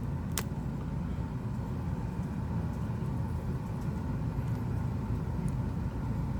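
Steady low background rumble, with a single sharp click about half a second in and a fainter one near the end.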